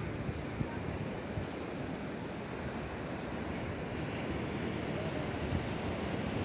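Ocean surf breaking and washing up a sandy beach in a steady hiss, with wind buffeting the microphone. The wash grows a little brighter and louder about two-thirds of the way in.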